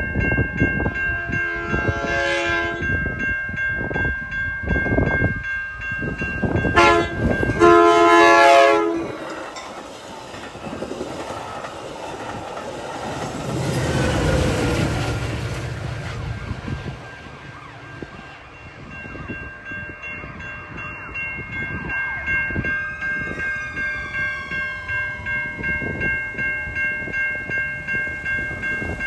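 Metra commuter train sounding its multi-chime horn twice, a short blast and then a longer, louder one, with wheels clicking over the rails as it passes. A rumbling swell follows as the train goes by, and a steady, evenly repeating ringing, like grade-crossing bells, runs under it.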